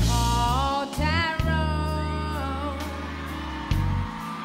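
Music: women singing a wavering, held melody over deep sustained bass notes.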